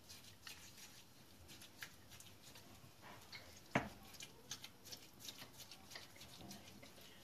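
Faint, soft ticks and scrapes of a silicone brush stirring a thick sauce of pepper paste and olive oil in a small ceramic bowl, with one sharper tap against the bowl a little past a third of the way in.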